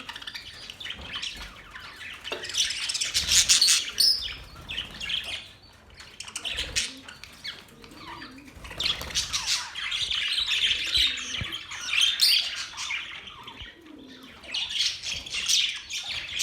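Budgerigars chirping and chattering without a break, several birds calling over one another, the chatter swelling and easing every few seconds.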